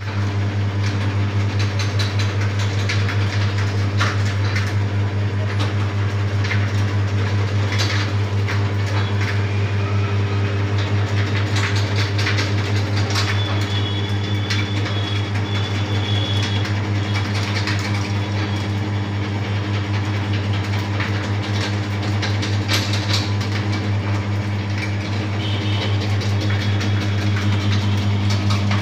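Electric supari (areca nut) cutting machine running with a steady motor hum, with irregular sharp clicks and cracks as betel nuts are pressed into the blade and sliced.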